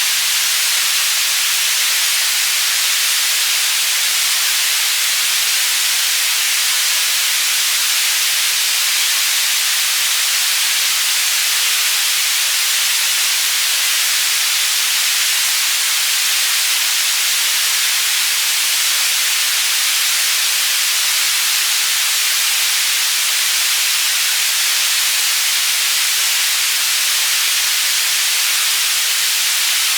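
Synthesized white noise for tinnitus masking, panned between the left and right channels: a steady, unbroken hiss weighted toward the high end, with little low rumble.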